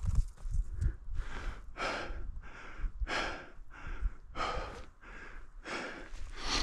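A person breathing hard and fast from the exertion of climbing on snowshoes, with quick regular in-and-out breaths, about ten in six seconds. A low wind rumble sits on the microphone underneath.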